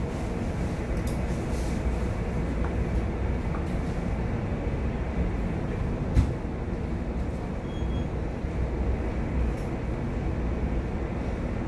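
Steady low rumble aboard a large chemical tanker under way, with one sharp knock about six seconds in.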